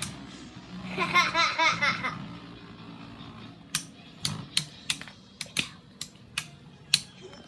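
A child laughs for about a second, about a second in; then spinning Beyblade tops clash, a series of sharp, irregular clicks about every half second.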